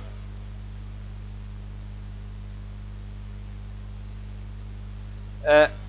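Steady low electrical mains hum in the recording, with no audible keystrokes. A short vocal sound is heard near the end.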